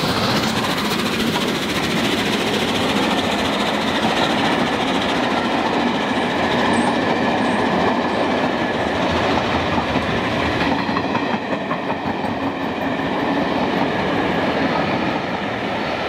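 Steam-hauled train passing at speed behind the A1 Pacific steam locomotive 60163 Tornado: a steady rush of running noise as the engine and its coaches go by. From about two-thirds of the way through, the coach wheels click in a regular rhythm over the rail joints.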